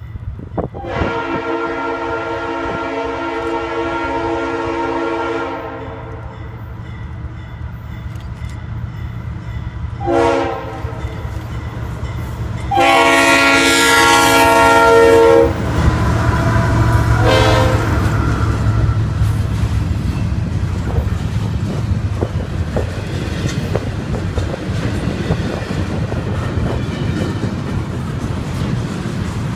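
Norfolk Southern diesel freight locomotive's multi-chime air horn blowing for a grade crossing: one long blast, a short one, a second long and loudest blast, then a brief short toot. The locomotive's engine then passes and double-stack intermodal container cars roll by with a steady rumble and clatter of wheels on rail.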